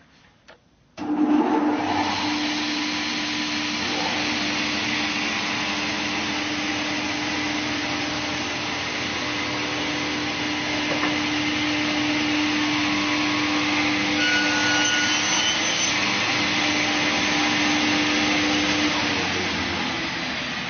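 Sliding table panel saw switched on about a second in, then running steadily: a hum under an airy rush. The hum drops out near the end while the rush carries on.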